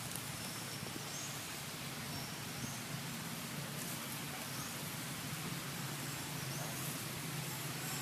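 Steady outdoor background hiss with a low hum, and faint short high chirps every second or two.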